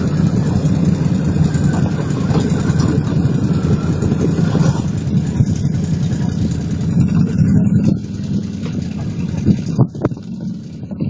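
ATV engine running steadily, quieter from about eight seconds in, with a few sharp knocks near the end.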